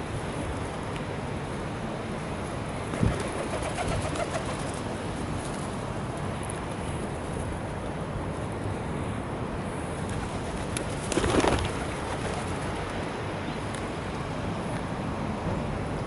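Feral pigeons cooing over a steady background hiss, with a brief louder burst of noise about eleven seconds in.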